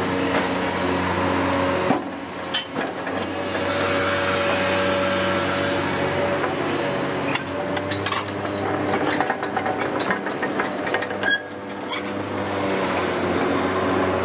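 Diesel engine of a Hitachi Zaxis 470 demolition excavator running steadily, with scattered sharp knocks and clanks of steel and rubble from about two to twelve seconds in.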